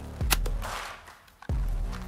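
Background music with a beat: a deep falling bass note and a sharp snap just after it. The music nearly cuts out just past a second in, then returns with another deep bass drop.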